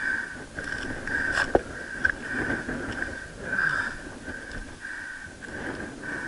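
A climber's breathing and movement on rock, with a sharp knock about one and a half seconds in, over a steady high buzz that pulses on and off.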